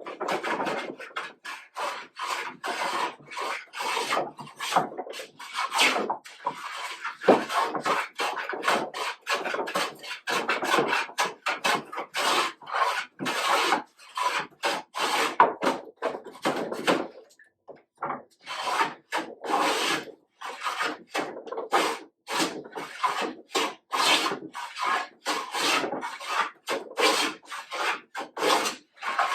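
Hand plane cutting shavings from a wooden board in quick repeated strokes, about one to two a second with a short break a little past halfway. The strokes take down high spots as the board is flattened.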